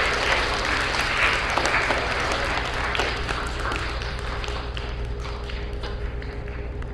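Audience applause dying away: dense clapping for the first few seconds thins out to a few scattered claps.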